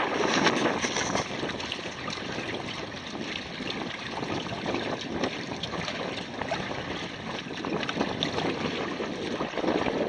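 Wind on the microphone and water washing past the hulls of a double canoe under sail, a little louder in the first second or so.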